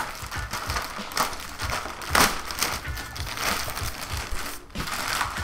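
Clear plastic wrapping crinkling and crackling as hands pull it open and off a packed item, with a louder crackle about two seconds in.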